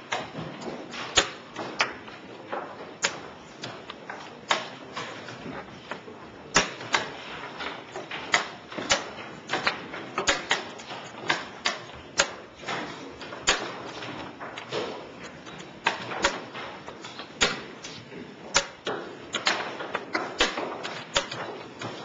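Chess pieces clicking down on a board in quick, irregular succession, roughly one to two sharp clicks a second.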